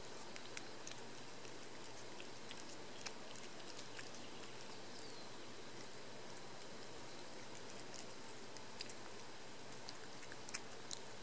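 Domestic cat eating wet pâté cat food at close range: scattered small wet clicks of chewing and licking over a steady background hiss, with a few sharper clicks together near the end.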